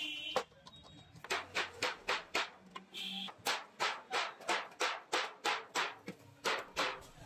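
Background music with a quick, steady percussive beat, about three beats a second.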